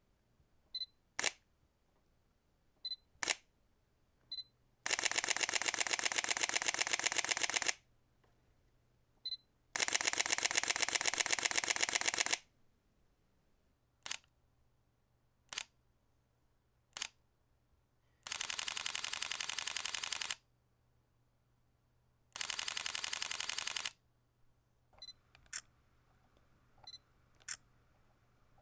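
Camera shutter clicks: single shots, some doubled, alternating with four bursts of rapid-fire continuous shooting that each last two to three seconds. Several fainter, lighter clicks come near the end.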